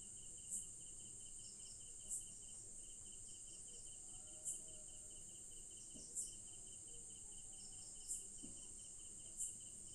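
Faint crickets trilling: a fast, evenly pulsing high trill under a steady higher-pitched buzz, with a short louder chirp about every second and a half.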